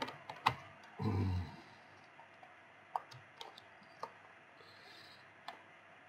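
Scattered small clicks and taps of a screwdriver and fingers on a laptop's hard drive and its bay as the drive is unscrewed and lifted out, with a short low murmur about a second in.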